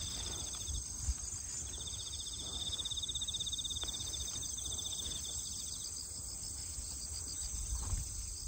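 Insects chirping: a fast pulsed trill that breaks off just under a second in, resumes and runs for about three seconds, over a steadier high shrill of other insects.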